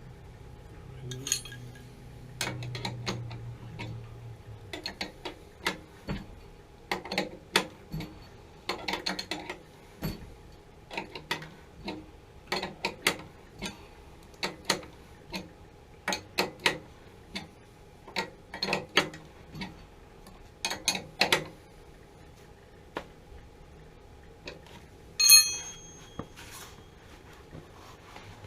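Metal clicks and clinks of a wrench working the fitting nut of the main burner gas line on a new water heater gas valve, the tool repositioned again and again in short strokes. About 25 seconds in, a louder clink rings briefly, metal striking metal.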